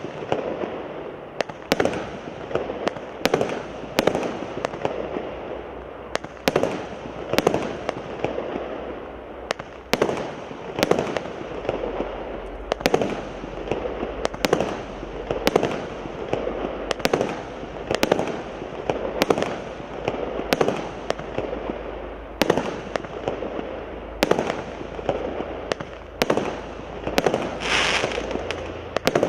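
A 36-shot, 0.8-inch (20 mm) firework cake firing: a regular series of launch shots about one a second, each followed by the pop and crackle of its burst.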